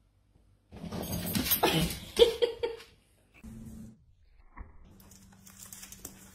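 A dog vocalising: about two seconds of loud, noisy barks or growls starting just under a second in, followed by fainter sounds.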